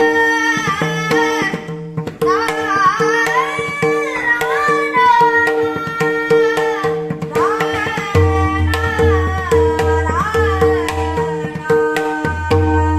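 A man singing a Marathi devotional song in long, bending melodic phrases, accompanied by tabla strokes and a steady held drone of sustained notes underneath. The voice drops out briefly about two seconds in, and again near the end, while the drone and tabla carry on.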